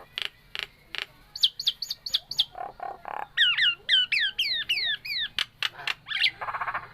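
Nias hill myna calling in a rapid string: a few sharp clicks, then runs of short, high falling whistles, broken by harsher buzzy notes, with more clicks and a final buzzy note near the end.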